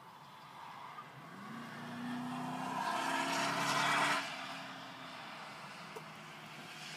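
Police patrol car accelerating hard on a driving course, its engine rising in pitch and then holding steady. The rush of the car grows loudest about three to four seconds in, then drops off sharply.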